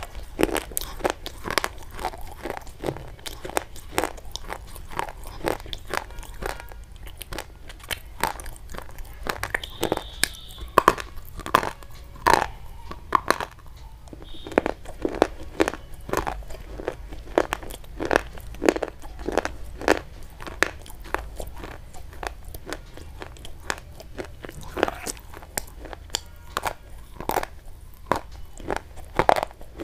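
Sharp crunches and snaps of brittle white chalk-like sticks being bitten off and crunched close to the microphone, coming steadily about one to three a second.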